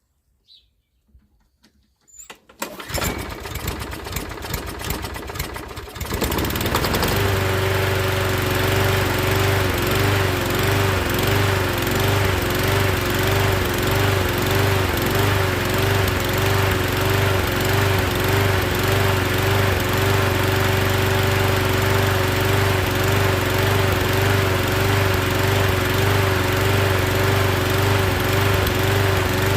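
Toro Recycler walk-behind mower's small engine starting about three seconds in and settling into a loud steady run by about seven seconds in. Its pitch wavers up and down rhythmically as the speed hunts: the surging that the mechanic puts down to the carburetor.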